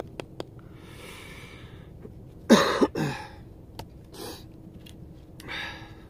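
A man breathing out audibly several times, with a short, loud vocal burst, such as a cough or a laugh, about two and a half seconds in and a weaker one just after it.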